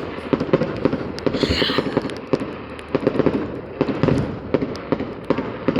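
Fireworks crackling: a dense, rapid string of sharp pops, with a brief hiss about a second and a half in.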